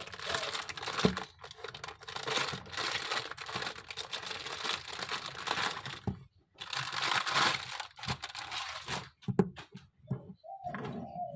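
Hand-pumped toy air horn: air hissing through it in two long stretches, about six seconds and then about two and a half seconds. Near the end comes a short wavering honk.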